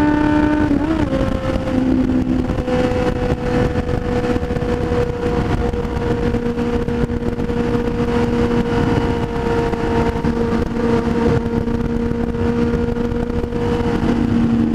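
Motorcycle engine running at a steady cruise under a continuous rush of wind noise. About a second in, the engine note steps down in pitch, as in a gear change, then holds nearly level.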